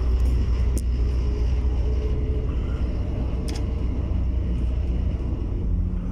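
Car driving slowly, heard from inside the cabin: steady low engine and road rumble, with two brief clicks, one about a second in and one past the middle.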